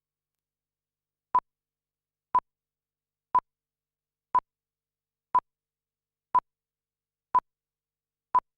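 Eight short electronic beeps on one steady pitch, evenly spaced a second apart, beginning after about a second and a half of silence.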